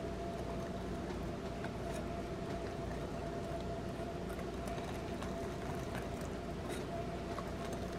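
Wire whisk stirring flour into a milk-and-egg batter in a glass bowl, with faint irregular clicks of the wires against the glass over a steady background hum.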